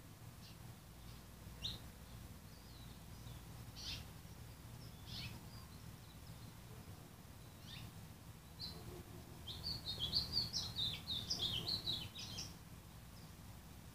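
Small birds chirping: scattered single high chirps, then a quick run of twittering from about ten seconds in until near the end, over a low steady hum.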